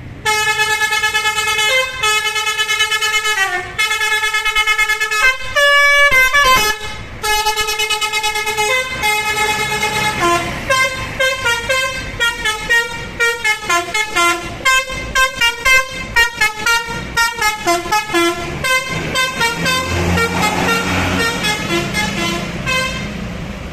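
Bus 'telolet' musical air horn playing a tune: long held multi-tone chords that step in pitch, then from about ten seconds in a fast run of short notes up and down. It cuts off suddenly at the end.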